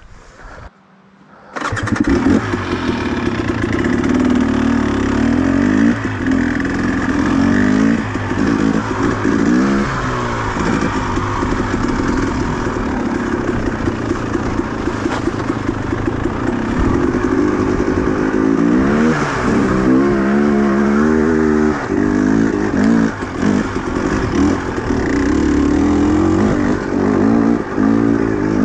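Small two-stroke engine starting up abruptly about one and a half seconds in, then running with its revs rising and falling repeatedly.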